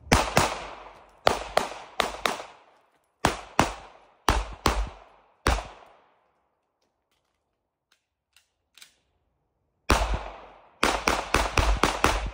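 Suppressed gunshots fired in pairs and short strings for about six seconds, then a pause of about four seconds, then a fast string of about eight shots near the end.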